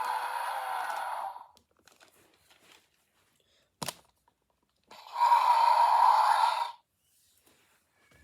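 Electronic dinosaur roar played twice through a toy's small speaker, each roar lasting about two seconds, with a single click between them.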